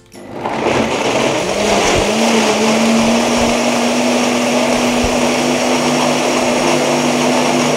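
Countertop blender starting up and running at full speed, blending chopped carrots with water into juice. Its motor pitch climbs over the first couple of seconds as it spins up, then holds steady.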